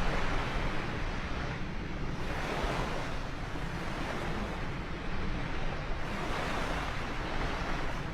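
B-2 stealth bomber's four turbofan jet engines passing overhead: a steady, broad roar that swells and eases every couple of seconds.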